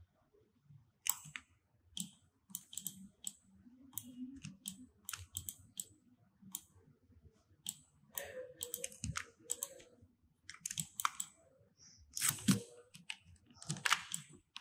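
Computer mouse and keyboard clicking irregularly as the design is edited: scattered sharp clicks, some in quick clusters.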